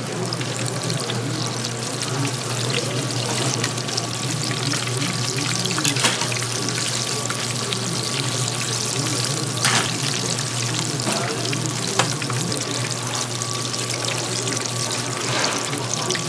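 Food deep-frying in oil, a steady sizzling hiss, with a low hum and a few sharp clicks of utensils.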